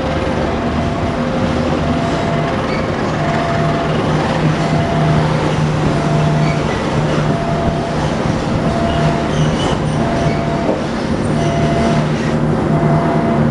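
An arriving passenger train's coaches roll steadily past with continuous wheel-on-rail noise and a low steady hum. Over it, a two-tone electronic warning alternates high and low at a regular beat throughout, like an Indonesian level-crossing alarm.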